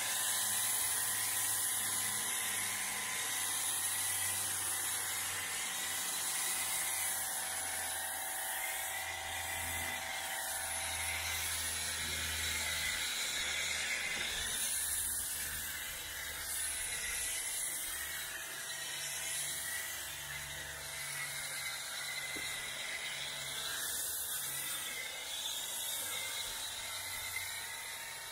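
Pressure washer running steadily, a motor whine under the hiss of an MJJC foam cannon spraying snow foam onto a car.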